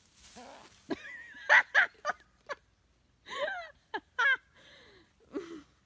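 A series of short, high-pitched vocal calls, some with a wavering pitch, coming in separate bursts with pauses between them.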